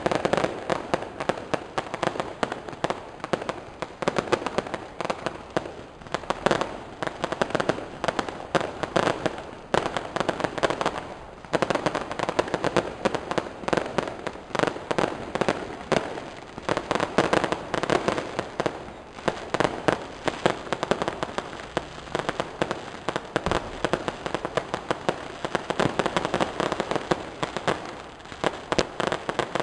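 Fireworks and firecrackers going off in a dense, continuous rapid crackle of sharp bangs, many a second, with no let-up.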